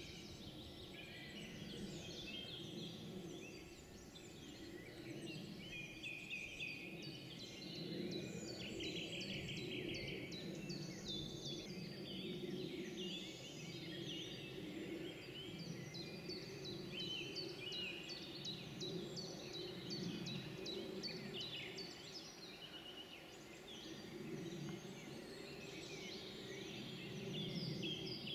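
Spring woodland bird chorus: several small birds singing at once, with rapid trills and quick runs of repeated notes, over a steady low rumble.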